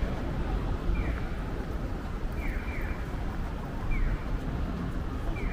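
Electronic bird-chirp pedestrian crossing signal of the Japanese kind: short falling chirps, one and then a pair, alternating about every second and a half, over a steady rumble of city street noise.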